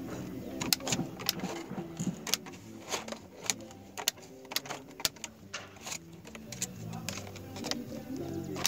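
Tin snips cutting a white vinyl soffit panel: a run of sharp, irregularly spaced snips and clicks.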